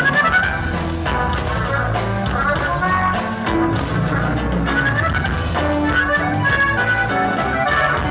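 Live norteño band playing an instrumental passage. Button accordion carries quick melodic runs over acoustic guitar and drum kit.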